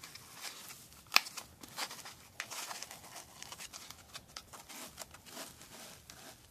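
Hands handling a metal-bracelet wristwatch on its foam watch pillow and pushing it into the foam insert of a hard watch case: scratchy rustling and scraping with small clicks, and one sharp click about a second in.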